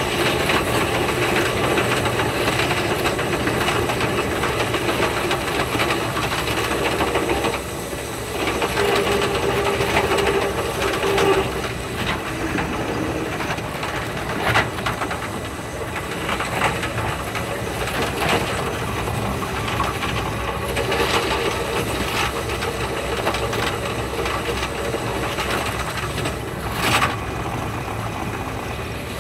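Running noise of the Thunderbird limited express electric multiple unit heard inside the carriage, sped up so that it becomes a dense, fast-flickering hiss. A couple of brief louder bursts stand out, one midway and one near the end.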